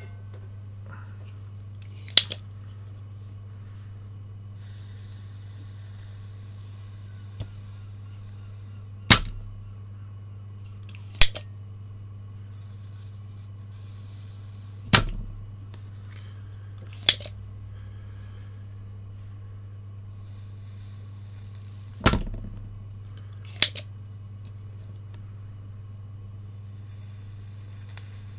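Spring-loaded desoldering pump (solder sucker) snapping as it fires on melted solder joints, alternating with lighter clicks as its plunger is pushed back down and latched; about seven sharp snaps, a few seconds apart. Between them come stretches of soft high hiss as the soldering iron heats the flux-coated pins.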